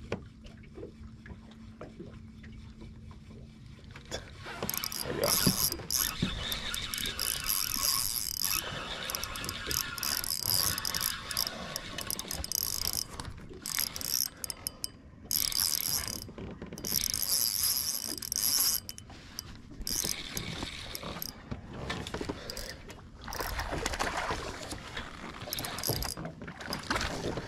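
Fishing reel being cranked in spells with short pauses, retrieving a lure; it starts about four seconds in.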